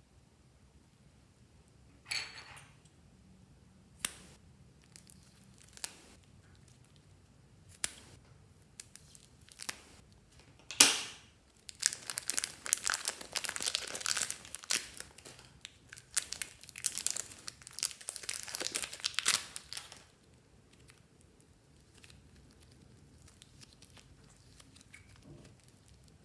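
Slime being worked by hand, with scattered sharp pops and clicks, then about eight seconds of dense crackling and crinkling from roughly twelve seconds in.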